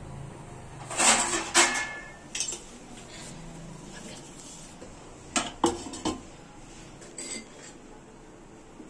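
Stainless steel kadai and lid clanking: a few sharp metal clinks about a second in, a single clink a moment later, then another cluster a little past halfway as the steel lid is set on the pan.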